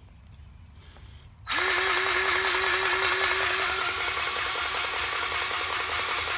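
DEWALT 20V Max cordless grease gun (DCGG571M1) running, its electric pump motor forcing grease into a tractor's grease fitting. It starts about a second and a half in as a loud, steady whine.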